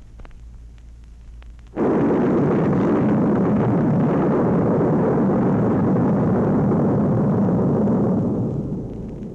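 Space sound effect from an old sound-effects record: a faint low hum, then a sudden loud blast of rumbling noise about two seconds in. The blast holds steady for several seconds and fades away near the end.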